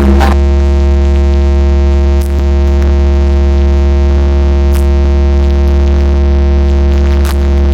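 Truck-mounted car-audio sound system playing electronic music very loud, dominated by a deep bass note held steady, with synthesizer tones above it.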